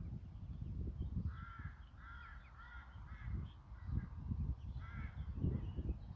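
A crow cawing: a quick run of about four caws, then another about five seconds in, over a low rumbling noise.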